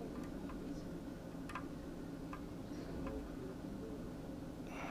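A few faint, irregular small clicks of metal tweezers and a soldering iron tip against a circuit board as a surface-mount tantalum capacitor is nudged into place and soldered, over a low steady hum.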